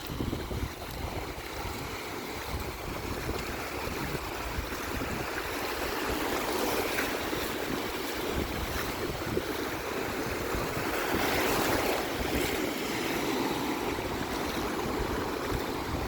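Sea waves washing on the shore, with wind buffeting the microphone; the wash swells to its loudest around eleven to twelve seconds in.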